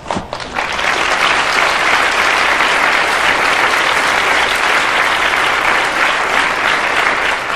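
An audience of a few dozen people applauding: dense, steady clapping that swells up within the first second and holds.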